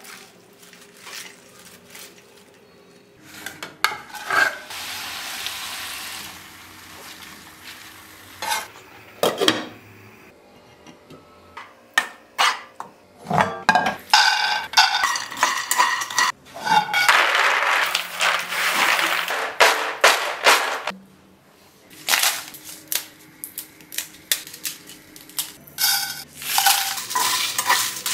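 Cooking sounds from a frying pan and bowl: leaves handled in a steel bowl, peanuts clattering into a nonstick frying pan, then a spatula stirring and scraping dried red chillies and seeds in the pan, with repeated clinks and stretches of scraping or sizzling.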